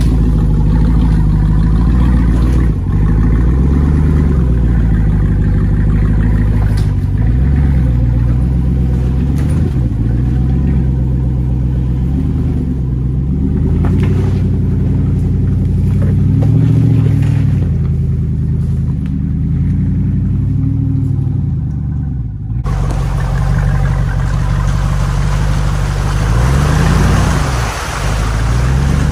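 Jeep Wrangler Rubicon 392's 6.4-litre Hemi V8, through an aftermarket exhaust, revving up and down again and again as it crawls over creek-bed boulders. About 23 seconds in the sound changes abruptly to a steadier engine note under a rushing hiss of mud and brush against the Jeep.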